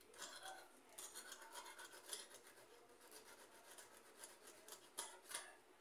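Faint, quick scratching of a small file rubbing the upper contact of a rice cooker's activation switch, cleaning off corrosion that keeps the contacts from closing. Two sharper clicks come near the end.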